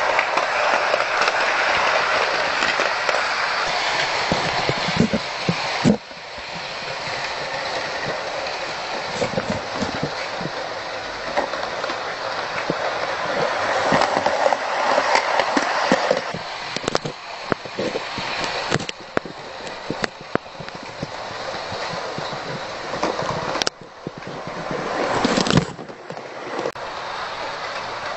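H0-scale model electric train running on sectional track laid on a laminate floor: a steady rolling whir of motor and wheels that swells and fades as the train comes and goes, with scattered clicks at the rail joints.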